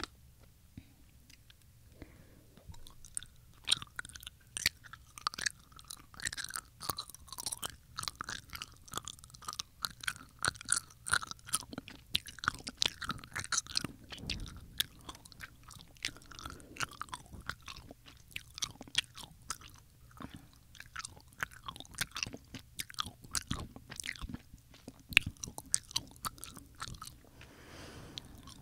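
Haribo Goldbears gummy candy chewed right at the microphones: a dense run of wet mouth clicks and smacks, beginning after about two quieter seconds.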